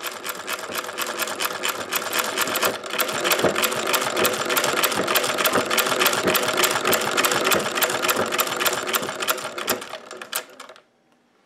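1871 Singer New Family (Model 12) treadle sewing machine running at full speed with a rapid, even clatter. It comes up to speed over the first couple of seconds and stops about a second before the end. Part of the noise is knocking from the wooden pitman rod, which is worn loose on its metal bearings.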